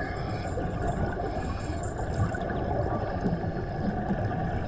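Steady underwater rumble with gurgling water around a diver during a slow ascent.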